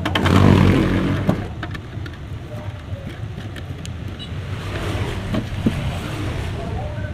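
A motor vehicle engine rumbling, loudest in the first second, then settling to a steady rumble, with a few sharp clicks.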